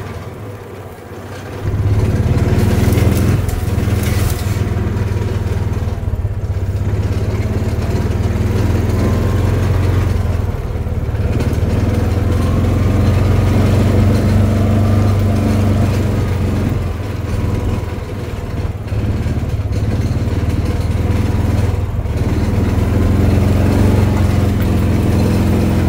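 Utility vehicle's engine picking up about two seconds in, then running steadily as the vehicle drives along, its note dipping briefly a few times.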